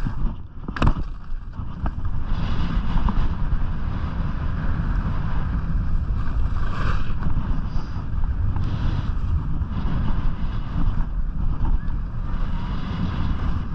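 Wind buffeting the action-camera microphone during a downhill ski run, with the hiss and scrape of skis on packed snow swelling and fading from turn to turn. A sharp knock under a second in.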